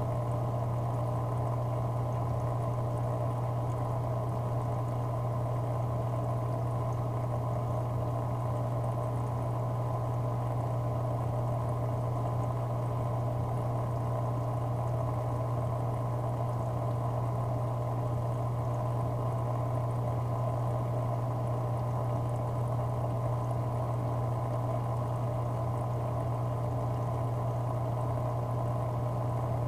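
Aquarium equipment running: a steady low hum with a constant wash of moving, bubbling water.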